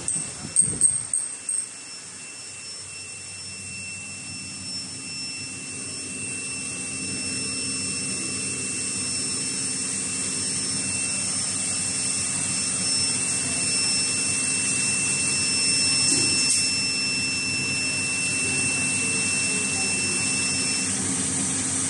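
Steady machine drone and hiss from a wire ring coiling and butt-welding machine, after a few sharp knocks in the first second and a half. Two faint steady high whines run over it and stop near the end.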